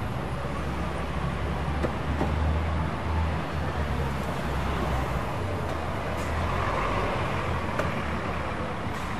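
Busy city street traffic: cars and buses passing with a steady low rumble of engines and tyres, swelling as vehicles go by.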